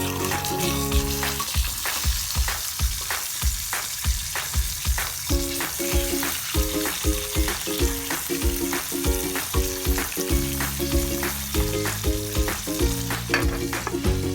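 Food frying in hot oil in a pan, a steady sizzle, under background music with a steady beat.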